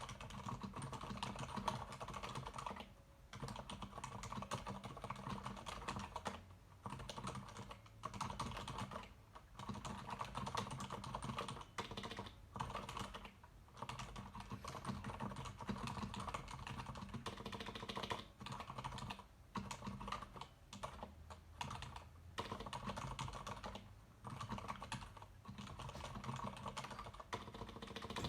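Continuous typing on a Leopold FC900R PD mechanical keyboard with low-noise silent red switches: a dense run of soft keystrokes, broken by short pauses every few seconds.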